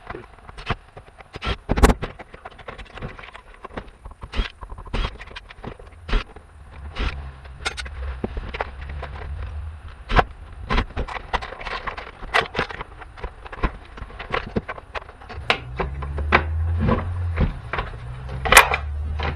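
Clicks, knocks and light clatter of hand tools on small metal and plastic parts as a jump pack's little air pump is taken apart. A low hum comes in for a few seconds in the middle and again near the end.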